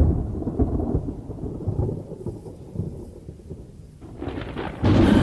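Thunder: a loud low rumble that slowly fades over about four seconds, then a second loud clap near the end.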